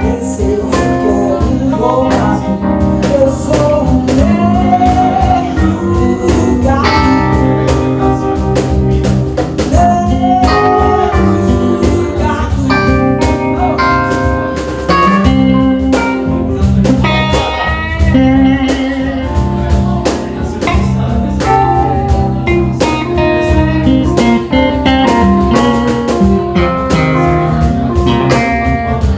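Band playing an instrumental break of a bluesy rock song: a lead guitar line with bent, gliding notes over bass and a steady beat.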